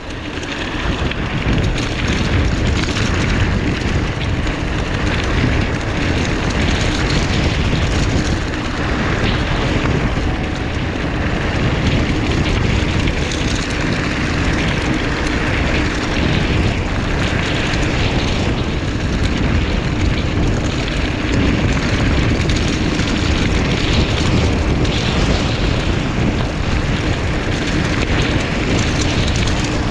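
Wind buffeting the microphone of a GoPro action camera on a moving mountain bike, a loud steady rush with tyre rumble underneath.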